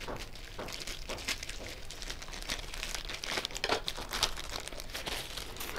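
Parcel wrapping crinkling and rustling in the hands as a book parcel is opened, a dense run of small crackles throughout.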